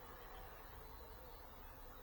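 Near silence: a faint, steady low hum and hiss of room tone.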